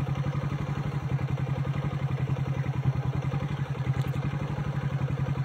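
A small engine idling steadily, with an even, fast pulse.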